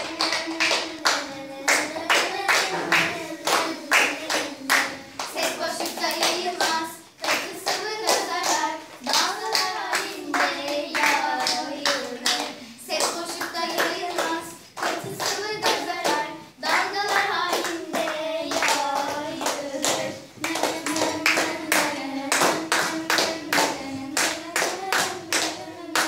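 A group of young girls singing a song together in unison, clapping their hands on a steady beat.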